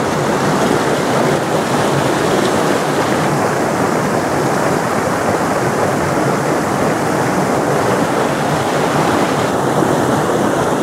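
Steady rushing of a stream running over rocks.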